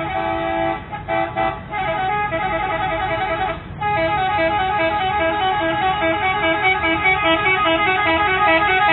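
A bus's telolet horn, a multi-tone musical air horn, playing a jingle of changing notes. It breaks off briefly a few times in the first four seconds, then plays on without a break.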